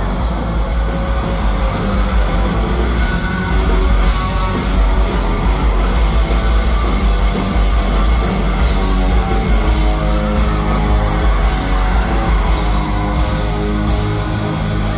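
Live rock band playing loudly through the venue's PA, led by electric guitar over bass and drums, heard from the audience.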